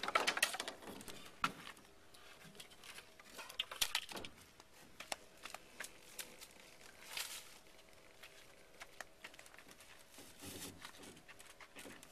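Scattered crackling, scraping and clicking from hands working on a boat hull as one end of it is lifted. The noise comes in short bursts, loudest in the first second and again about four and seven seconds in.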